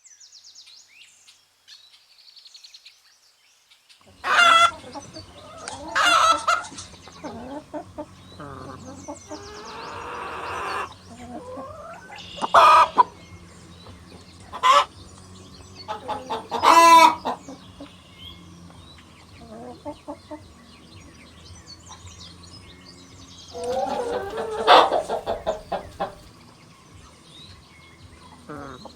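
Chickens clucking and squawking: a string of loud calls a few seconds apart, starting about four seconds in, with a longer run of clucking near the end.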